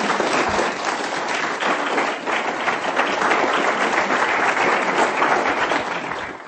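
Audience applauding with a steady, dense clapping that cuts off abruptly near the end.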